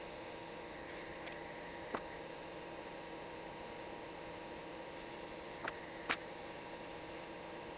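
Steady background hum and hiss, with three faint short clicks: one about two seconds in and two close together a little after five and a half seconds.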